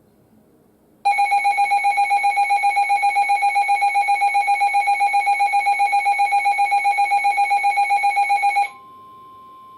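Loud electronic alert alarm from a weather alert radio, a rapid pulsing beep of about six pulses a second, starting about a second in and cutting off near the end. It is followed by the steady 1050 Hz NOAA Weather Radio warning alarm tone, which announces the severe thunderstorm warning broadcast that follows.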